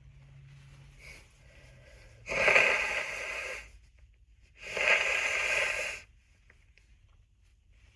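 A person blowing their nose hard twice, each blow lasting just over a second, the second about two seconds after the first.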